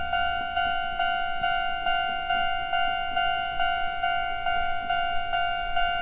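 Electronic warning bell of a Japanese railway level crossing, ringing a steady, evenly repeated ding a little over twice a second. This is the signal that the crossing is closed for an approaching train.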